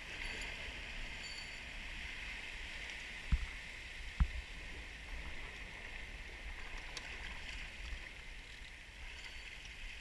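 Waves washing against a rocky shoreline: a steady hiss of surf with a low rumble underneath. Two short thumps, about a second apart, stand out a few seconds in.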